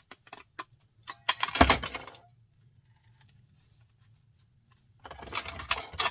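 Printer parts clicking and clattering as they are handled: a few sharp clicks, then two bursts of clatter about a second long, one near the start and one near the end.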